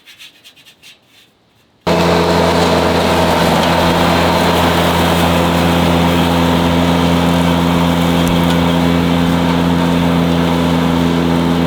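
A few faint clicks, then about two seconds in the steady, loud drone of a Ventrac compact tractor's engine and Tough Cut brush mower running at constant speed starts abruptly, a dense hum of fixed pitches with no change in speed.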